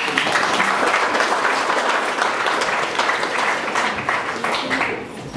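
Audience applauding: steady, dense clapping that eases off near the end.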